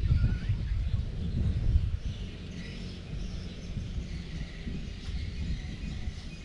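Outdoor yard ambience: a low rumble, louder for the first two seconds and then easing off, with a few faint bird chirps.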